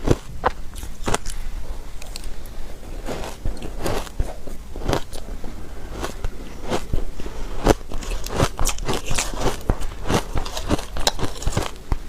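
Close-up biting and chewing of soft shaved ice: many crisp, irregular crunches.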